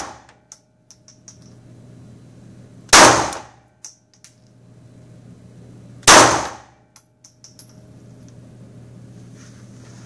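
Pistol shots fired slowly, one about every three seconds. Each sharp report is followed by brief high metallic tinkles, like ejected brass casings landing.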